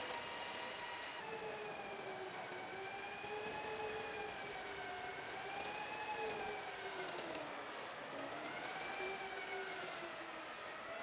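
M1 Abrams tank's gas turbine engine whining, a high pitched tone that rises and falls slowly and dips lowest about eight seconds in.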